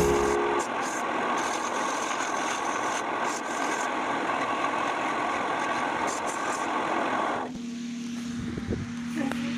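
Wood lathe turning a bed leg: a steady rasping hiss of a tool cutting the spinning wood, which stops about seven and a half seconds in, leaving the steady hum of the lathe motor with a few light knocks.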